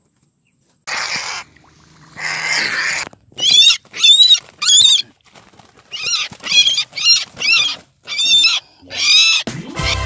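Two short bursts of rustling noise, then a quick series of about a dozen short, high, wavering squealing animal calls.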